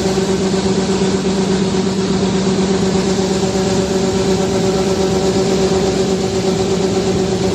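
A vehicle engine runs at a steady speed, giving an even, unchanging hum.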